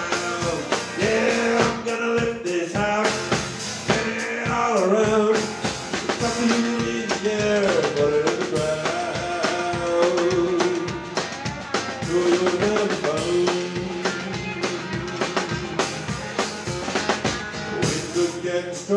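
Live country band playing: acoustic and electric guitars with a drum kit keeping a steady beat.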